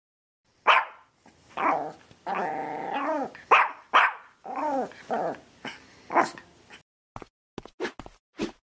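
A dog barking in a string of short calls, several falling in pitch, with one longer drawn-out call about two seconds in. Near the end come a few quick short taps.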